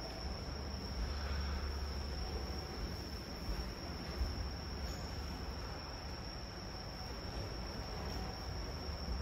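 Crickets trilling steadily, a constant high note, over a low rumble of room noise.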